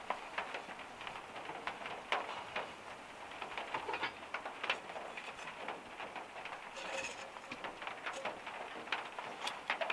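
Freezing rain pattering on a camper van's roof: a steady haze of many small irregular ticks, with a few sharper knocks as a frying pan is handled and tipped onto a plate.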